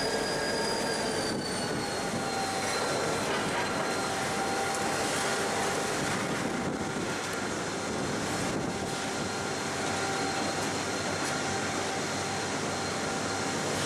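Grain hopper wagons rolling slowly while being shunted, their steel wheels giving a steady squeal made of several high ringing tones over a rumble. The tones sink slightly in pitch about a second in.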